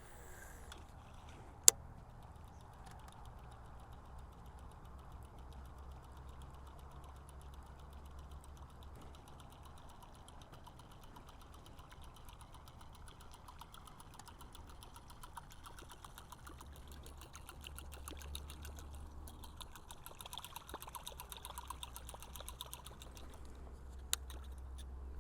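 Fishing reel being cranked, giving a quiet, fast, fine ticking, with light water trickling. A single sharp click comes about two seconds in, and a smaller one near the end.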